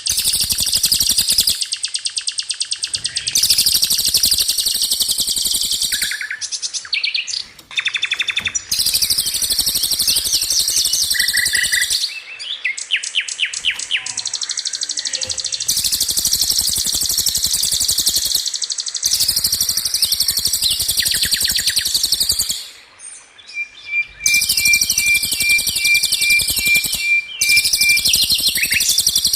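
Caged songbird tutor recording: bursts of very fast, high-pitched machine-gun trills ('rol tembak') a few seconds long, separated by short pauses and a few brief whistled notes.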